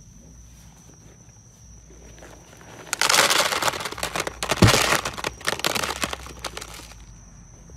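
A sneaker full of millipedes being shaken out: a dense crackling rattle and rustle of the millipedes and shoe, starting about three seconds in and dying away some four seconds later.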